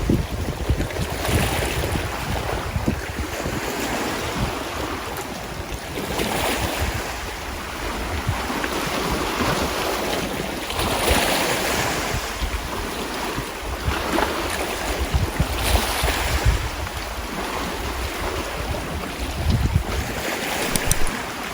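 Sea waves washing in, swelling and easing every few seconds, with wind buffeting the microphone as a low rumble.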